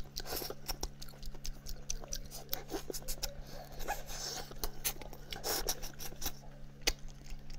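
Close-miked wet eating sounds from someone picking at and sucking the meat off a braised chicken head with his fingers: a run of sticky lip smacks, short sucking slurps and chewing clicks.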